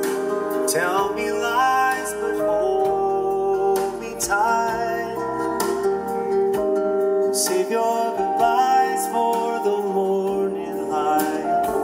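A song with a singing voice, played from an audio CD through a car's aftermarket sound system as a listening test.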